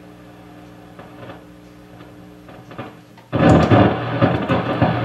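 Zenith 10S464 console tube radio's loudspeaker giving a faint steady low hum. About three seconds in, a sudden loud burst of crackling static starts, which the repairer puts down to dirty switches.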